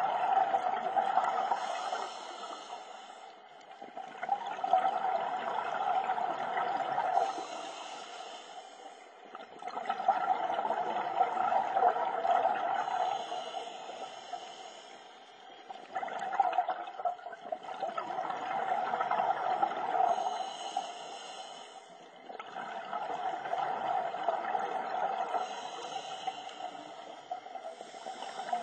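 Scuba diver breathing through a regulator underwater, in a slow, even rhythm of about five breaths: each breath is a rushing hiss followed by a bubbling exhale.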